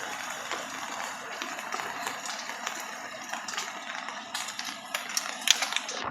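Stones and debris of a landslide tumbling down a slope, with scattered sharp knocks and clatters over a steady hiss of water in heavy rain. The loudest knocks come near the end.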